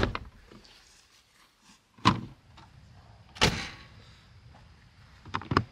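Hard plastic storage tote knocking and thudding as it is lifted out of a van and set down on the ground: a handful of separate sharp knocks with quiet between, ending in a quick double clack.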